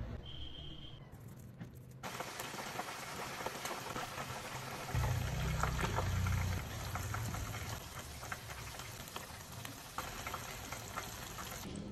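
Teriyaki-glazed chicken sizzling in a frying pan: a steady crackle of fine pops that sets in about two seconds in. A low rumble, the loudest part, comes for about a second and a half near the middle.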